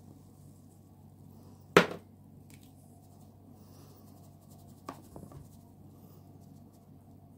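Knocks from a plastic mesh flour sieve being tapped while sifting flour: one sharp knock about two seconds in, then a softer knock followed by a few light taps near five seconds, over a faint steady hum.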